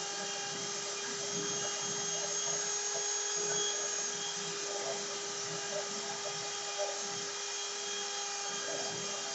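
CNC router spindle running steadily while cutting, a constant whine over a rough cutting noise that stays level throughout.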